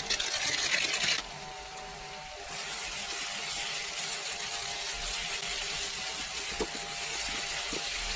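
Chopped vegetables frying in a pan on a gas stove: a steady sizzle, with a spatula stirring and scraping through them from a few seconds in. A louder hiss in the first second as garam masala is shaken in from a packet.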